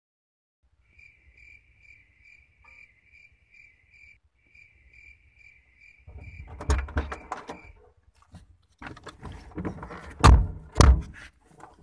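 People climbing into a car's front seats: rustling and knocking, then two heavy car-door thuds about ten seconds in. Before that, a faint high chirp repeats about three times a second for several seconds, then stops.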